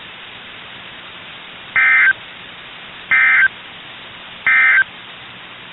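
Emergency Alert System end-of-message code: three short bursts of warbling two-tone data sent about a second and a half apart over steady radio hiss, marking the end of the weather radio alert.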